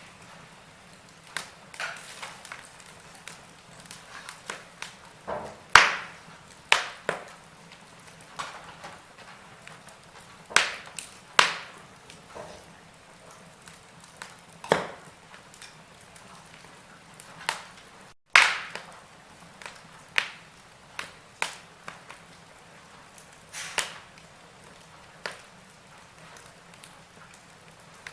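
Wood fire crackling in a fireplace: irregular sharp pops and snaps, some loud, over a faint steady hiss, with a split-second cut-out of all sound about eighteen seconds in.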